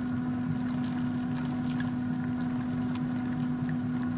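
Steady electric motor hum from a running kitchen appliance, with a wire whisk stirring gravy in a metal saucepan and clicking faintly against the pan a few times.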